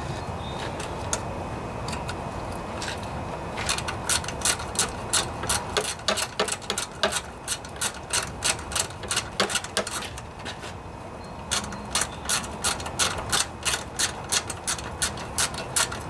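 A socket ratchet wrench clicks in quick runs, about four or five clicks a second, as bolts are driven into the Briggs & Stratton engine's aluminium block. The clicking starts a few seconds in, pauses briefly a little after halfway, then resumes.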